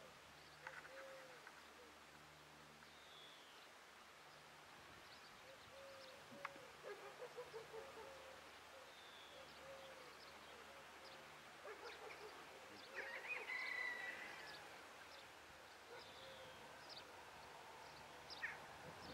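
Faint birdsong: scattered short chirps and calls from several birds, with a quick run of lower repeated notes in the first half and a brighter, louder call about two-thirds through, over a faint low hum.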